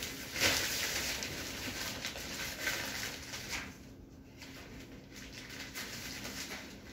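Thin plastic sheeting rustling and crinkling as it is handled and shifted overhead. It is louder in the first few seconds and softer after about four seconds.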